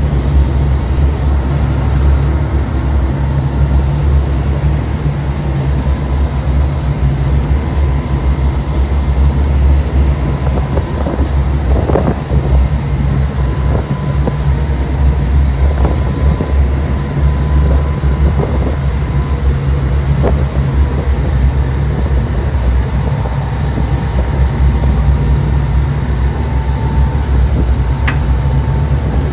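RNLI all-weather lifeboat's diesel engines running hard at sea, a loud steady low drone, mixed with the rush of wind and water over the microphone and a few brief knocks.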